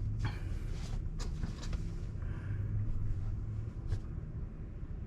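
Low, steady road and tyre rumble inside the cabin of a moving Tesla electric car, with no engine note. A few light clicks in the first two seconds and one more near four seconds.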